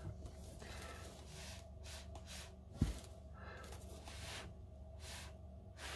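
Soft, short puffs of breath, several through the stretch, like gentle blowing through a straw onto wet paint, with one brief low thump about three seconds in.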